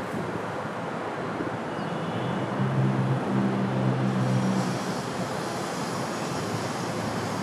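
Steady city background noise, with a low engine drone swelling louder for a couple of seconds around the middle before fading back.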